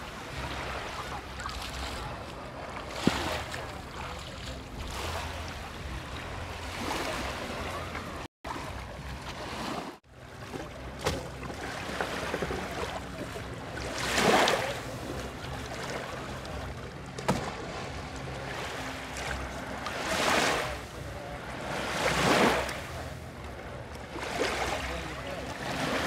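Small, gentle waves washing up onto the sand at the water's edge, each wash swelling and fading every couple of seconds, over a steady low wind rumble on the microphone.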